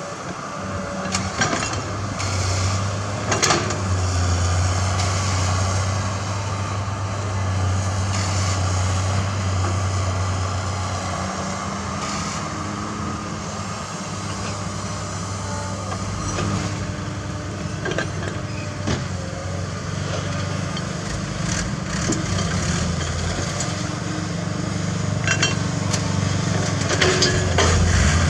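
Diesel engines of heavy construction machinery, excavators and dump trucks, running steadily, with a few sharp clanks and knocks. The engine sound grows louder near the end.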